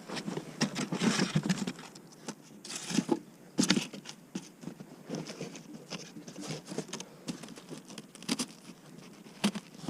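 Irregular knocks, clicks, scrapes and rustling as beehive boxes and their parts are handled, with the loudest knocks about one, three and three and a half seconds in.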